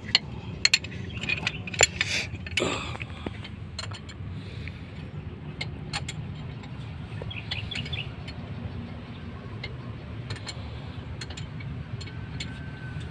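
Metal clinks and knocks of hand tools working the nuts on a truck diesel's fan assembly, several sharp ones in the first three seconds and then only a few scattered clicks over a steady low hum.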